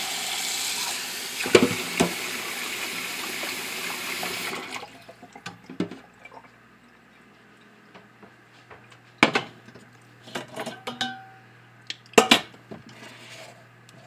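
Tap water running into a stainless-steel saucepan holding a chicken breast, with a couple of knocks of the pot, until the tap shuts off about five seconds in. Then scattered clanks and knocks of the pot being handled and set on a glass-top stove, the loudest about nine and twelve seconds in.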